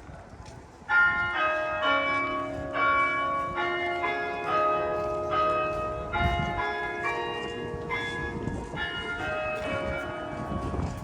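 Church bells of Mission San José ringing: several bells of different pitches struck one after another in quick succession, starting about a second in, each note ringing on under the next.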